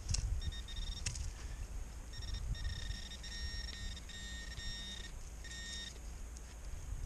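Metal detector beeping in short, uneven bursts of a single high tone while pinpointing a target in the side wall of a dig hole. The beeps come thickest in the middle. Two sharp clicks sound about a second apart near the start.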